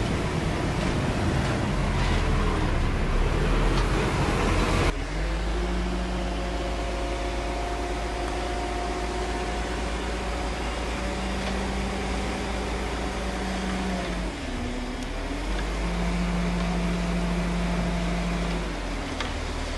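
Heavy diesel earth-moving machinery running: dense, noisy working sound at first, then, after an abrupt change about five seconds in, a steadier engine hum with a brief drop in revs about two-thirds of the way through.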